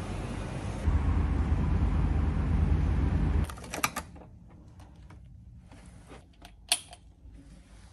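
A loud low rumble that cuts off suddenly about three and a half seconds in; then, much quieter, a hotel room door's key-card lock being worked: a few small clicks, and one sharp click of the lock near the end.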